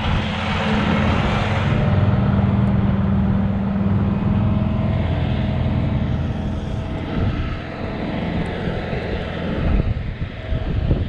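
A steady engine drone with a low hum, heard over the open air, with a few short low thumps near the end.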